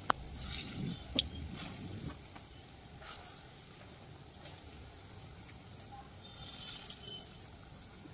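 Moong dal vada batter frying in hot oil in a kadhai, the oil sizzling with scattered crackles as fresh batter goes in. Two sharp clicks come in the first second or so, and the sizzling swells briefly about six and a half seconds in.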